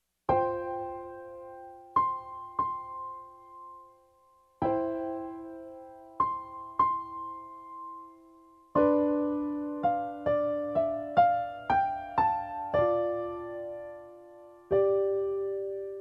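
Background music: a slow electric piano melody of single ringing notes. A short three-note phrase is played twice, then quicker notes follow from about nine seconds in.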